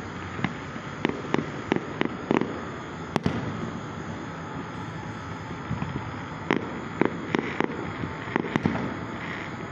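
An irregular series of sharp pops and bangs, about a dozen, over a steady background hiss. The loudest bang comes about three seconds in, followed by a lull of a few seconds before more pops.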